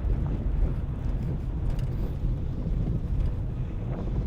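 Steady low rumble of a car on the move, engine and road noise, with wind buffeting the microphone.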